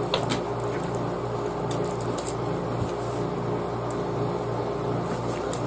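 Steady machine hum, like a small motor or fan running, with a few faint clicks and taps.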